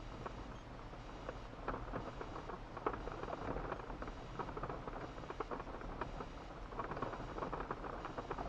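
Toyota Land Cruiser FZJ80's tyres crackling and popping over a gravel track at walking pace, heard from inside the cab, with many small irregular clicks over a low steady hum.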